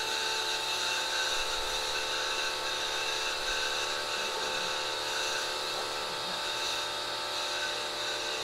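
Wholesun 1600-watt electric pressure washer running steadily: a constant-pitched motor and pump hum under the even hiss of the water jet spraying onto concrete.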